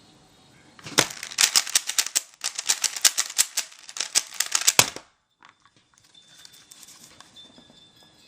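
Rubik's brand 3x3 cube being turned fast in a finger-trick algorithm: a rapid run of plastic clacks for about four seconds, then a pause and a few fainter clicks.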